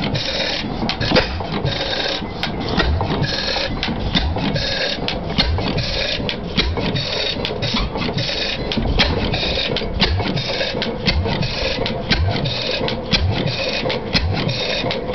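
Early Fairbanks-Morse 15 hp Z hit-and-miss engine running, with a steady rhythmic mechanical clatter of clicks over regular low thumps.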